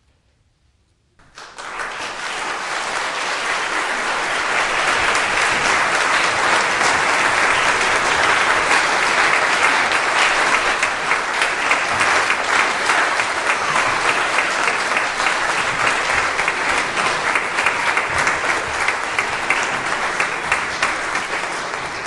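Audience applauding. After about a second of silence the clapping starts suddenly, builds over a few seconds into steady applause, and begins to die away near the end.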